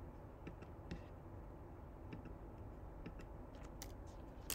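A handful of faint, irregularly spaced clicks of a computer mouse over a low steady hum.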